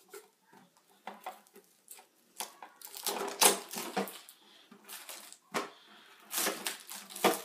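Packaging being opened by hand: irregular rustling, scraping and tearing with sharp little clicks. It is busiest from about two and a half to four seconds in and again near the end.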